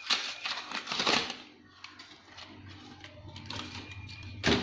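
Hands handling a boxed SSD and its packaging: rustling and light clicks, with one sharp knock about four and a half seconds in.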